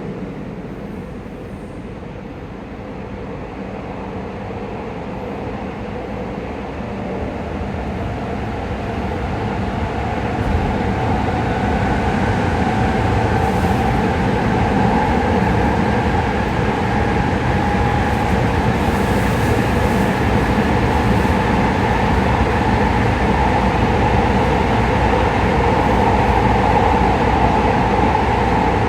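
JR West 207 series electric train running, heard from on board: rumbling wheel and running noise that grows louder over the first ten seconds or so and then holds steady, with a faint steady whine from the inverter and traction motors.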